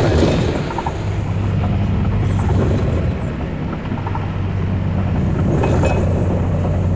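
Vehicle being driven in heavy rain: a steady low engine drone under a wash of road and rain noise.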